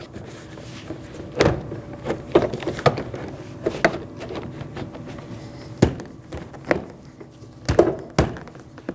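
Plastic interior door trim panel knocking and bumping against the car door as it is hooked over the door's top lip and shifted into line: about eight irregular thuds and knocks.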